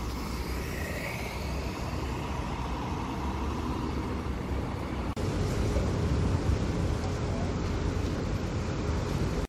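Steady low rumble of city street traffic and car engines. About five seconds in it cuts off briefly and comes back slightly louder.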